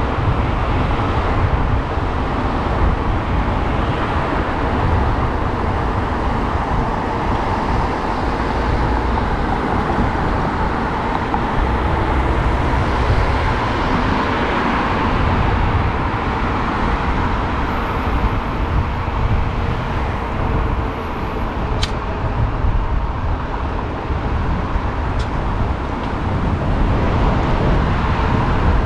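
Road traffic on a multi-lane city street, heard from a bicycle riding alongside: a steady rush of cars with a low rumble. Two faint clicks come in the last third.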